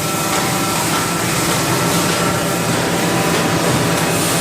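Haas VF-4SS machining center's Z-axis servo drive moving the spindle head, a steady mechanical running noise over the machine's fans, with a faint steady whine that fades out about a second in.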